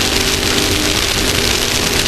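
Off-road race vehicle's engine running at a steady speed while under way, buried in loud, continuous wind and road noise.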